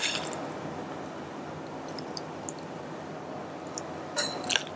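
Moist rice salad with mayonnaise being scooped from a glass bowl and packed into a hollowed tomato: soft squishing, with a few short clicks near the end.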